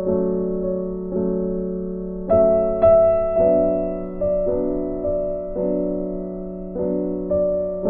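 Background music: a keyboard instrument playing slow, gentle chords. A new chord is struck about once a second and each one rings on and fades.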